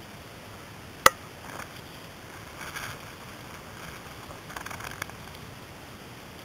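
A single sharp knock about a second in, the loudest sound, followed by a few short soft rustles, over a steady hiss.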